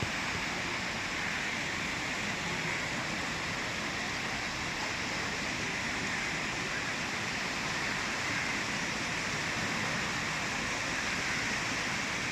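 Sea surf washing on a beach as a steady, even rushing noise with no distinct breaks between waves.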